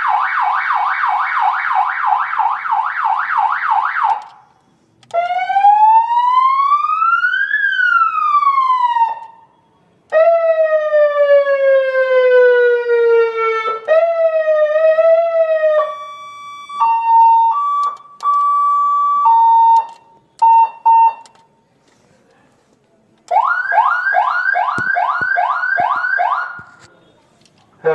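Electronic multi-tone vehicle hooter cycling through siren patterns. It plays fast repeating rising chirps, then a slow rise and fall, a long falling tone that breaks into a wobble, and a two-pitch hi-lo alternation with short beeps. After a short pause the fast chirps return.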